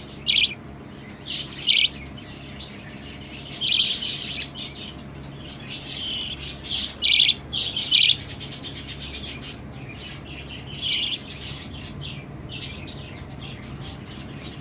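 Budgerigars chirping and chattering, with rapid quiet warbling broken by several loud, sharp calls.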